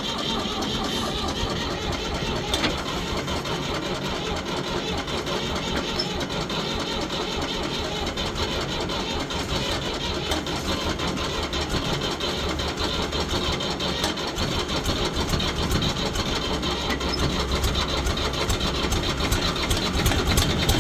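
1973 Ford 4500 industrial backhoe's diesel engine cranking on the starter after a freezing night, with a fast steady pulsing that grows louder near the end. This is a cold start without ether, and the engine is turning over but has not yet caught.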